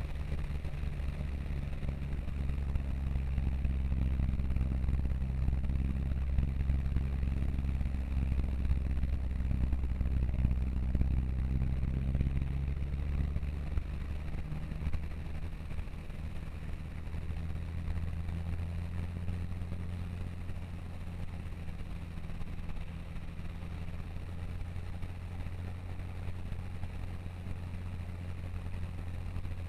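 Vehicle engine running steadily, heard from inside the cab, while the vehicle drives through deep floodwater, with the hiss of water spraying against the body. About halfway through, the engine note changes to a different, slightly quieter steady hum.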